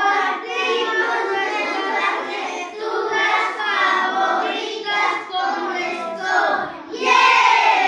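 A class of young schoolchildren singing together in unison, ending on a longer, falling note near the end.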